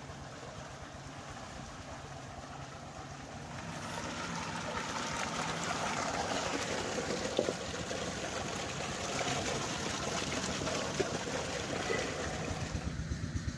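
Water gushing steadily from a pipe into a concrete water tank, growing louder about four seconds in as the vegetables in a clay bowl are rinsed under the stream, with a couple of light knocks. A low engine thudding becomes noticeable near the end.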